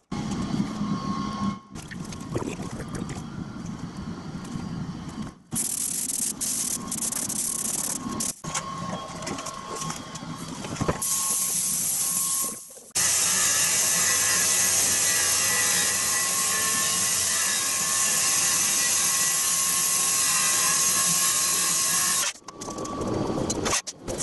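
Metalworking power tools on steel in several short cuts, one after another. About halfway through, a machine starts a steady loud hissing run with a low hum underneath, lasting about nine seconds.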